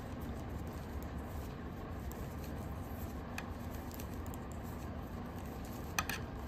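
Knitting needles clicking and rubbing faintly as stitches are worked, with one sharper click about six seconds in, over a steady low hum.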